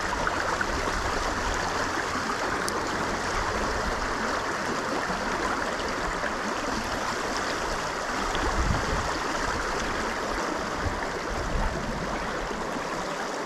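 Creek water rushing steadily over rocks, with some low rumbling about eight to nine seconds in.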